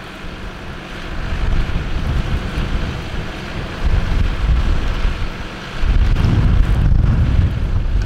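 Wind buffeting the microphone in gusts, growing stronger about four seconds in and again near the end, over the steady running of a John Deere tractor's engine pulling a reversible plough through stubble.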